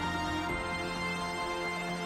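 Background music with held notes that change about half a second in.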